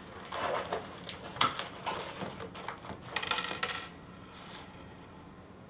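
Small hard parts of a mini PC being handled: irregular clicks and light rattles, with a louder clatter near the middle, dying down near the end.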